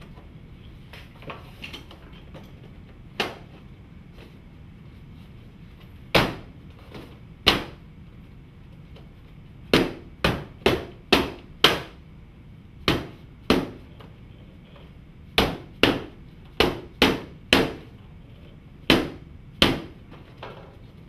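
Hammer blows as a stone-look cladding panel is fixed to the wall: about seventeen sharp strikes in irregular bunches of two to five, with a few faint taps in the first two seconds.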